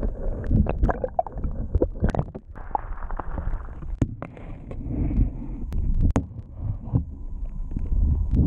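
Muffled underwater sound of water gurgling and sloshing against a camera held below the surface, with a low rumble and many sharp clicks and knocks.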